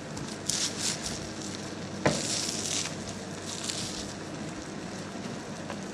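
Steady sizzling of food frying in oil in a pan, with a few short rustling bursts and one sharp knock about two seconds in.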